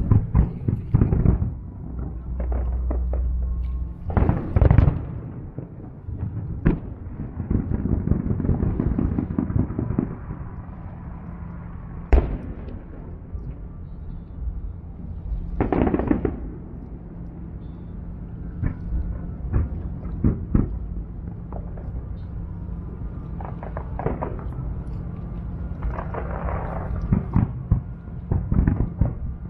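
Fireworks display: shells bursting in a string of booms and crackles, with a single sharp bang about twelve seconds in.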